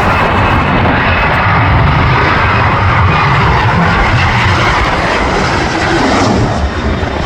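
Loud, steady engine noise of a jet airliner close by, easing slightly near the end.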